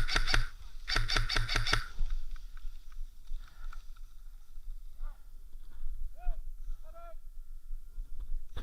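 Airsoft gun firing in quick bursts, about five shots a second, with a short burst of about four shots about a second in. Faint pitched calls follow near the middle.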